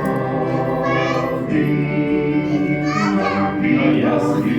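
A children's song with sung vocals, holding long notes of the melody.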